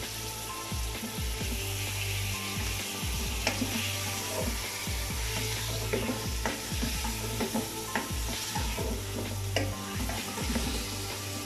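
Raw chicken pieces sizzling in hot oil in an aluminium pot as they are sautéed, with a wooden spoon stirring and scraping through them and knocking now and then against the pot.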